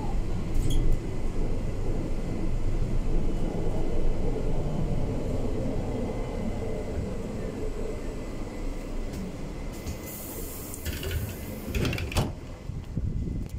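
BKM 321 trolleybus rumbling and rattling over the road from inside by its doors, easing off as it slows. About ten seconds in comes a sharp hiss of compressed air and a few knocks as the pneumatic doors open at the stop.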